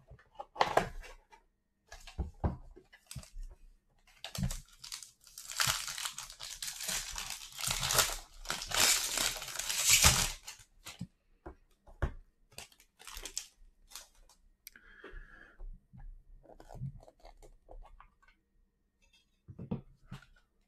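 Foil wrapper of a 2019 Bowman Chrome baseball card pack crinkling and being torn open by hand. The densest, loudest tearing comes about six to ten seconds in, with scattered handling clicks and rustles before and after.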